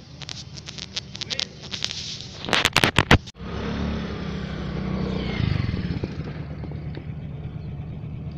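Rubbing and knocking right on the recording phone's microphone, several of them very loud, then after a sudden break a vehicle engine running with a steady low hum that swells briefly.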